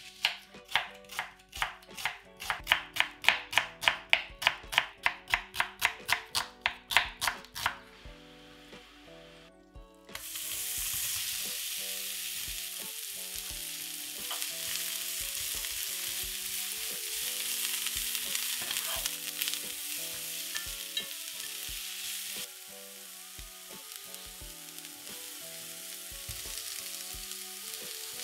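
A knife chopping onion on a wooden cutting board, quick even cuts about four a second for some seven seconds. After a short pause, sliced onion frying in oil in a pan with a steady sizzle that settles a little quieter near the end.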